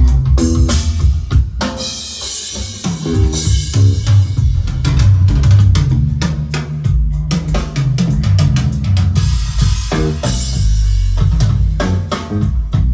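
Recorded music with a busy drum kit (kick drum, snare, rimshots and cymbals) over a bass line, played loud through JBL Studio 630 bookshelf speakers with a subwoofer.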